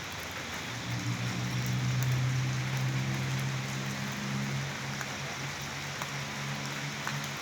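Steady rain falling, with the odd drop ticking. From about a second in, a low hum runs under it, loudest a second or two later and then easing off.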